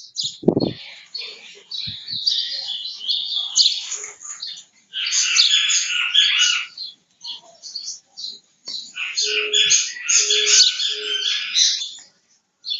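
Small birds chirping and twittering in rapid bursts of high notes, with brief gaps between bursts. About three-quarters of the way through come three short, low notes.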